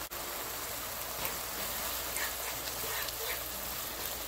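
Onion and tomato sauce base sizzling and simmering in oil in a frying pan: a steady hiss with scattered small pops.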